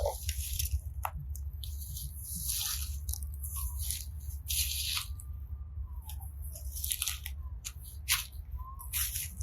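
Slime being squished and pulled by hand, giving wet, crackly squelches in irregular bursts.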